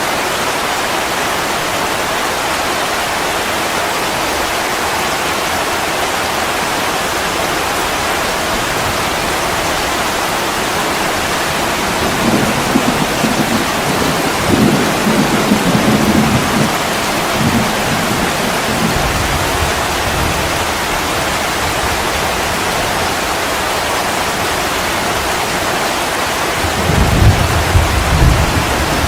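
Steady rain with rolling thunder: low rumbles swell about halfway through and again near the end.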